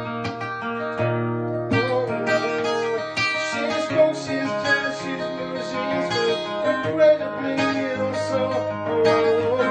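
Ibanez acoustic guitar strummed and picked, a steady run of ringing chords.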